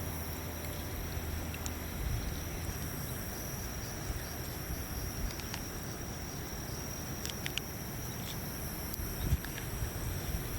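Evening riverbank ambience: a steady high insect trill over a low, even background hum, with a few faint clicks.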